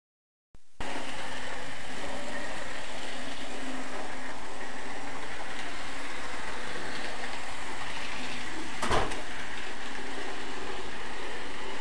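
N gauge model locomotive running on its track, a steady even whirr of the small electric motor and wheels, with a brief knock about nine seconds in.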